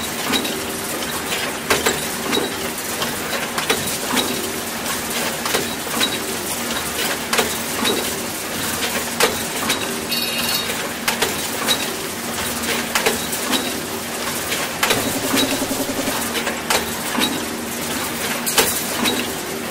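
Stones and broken rubble clattering and crunching as they are dug through and moved, with many sharp knocks over a steady low hum.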